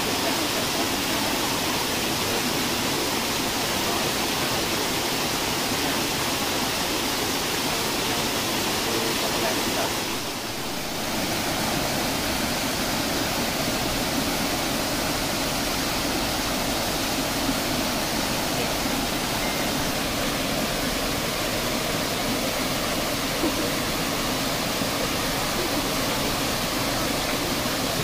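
Steady rushing of a forest waterfall and stream, dipping briefly about ten seconds in.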